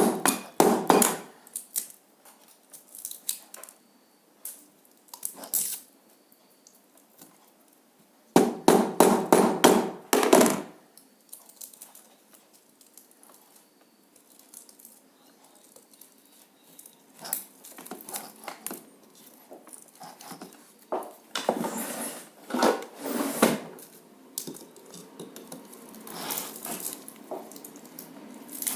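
Hammer blows on the metal of a microwave oven transformer, typical of knocking out its windings. The blows come in two quick runs, one at the start and one about nine seconds in, with scattered knocks and clattering metal later on.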